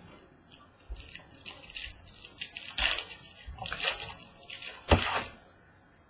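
Plastic trading-card packaging crinkling and tearing in a quick, irregular series as a box or pack of cards is ripped open, with a few light knocks of handling. The loudest tear and knock come about five seconds in.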